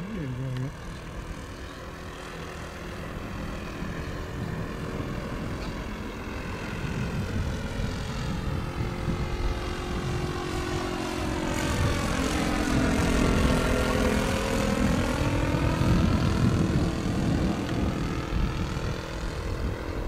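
OS 95 four-stroke glow engine and propeller of a radio-controlled Gipsy Moth scale biplane droning steadily in flight, growing louder toward the middle as the model comes nearer.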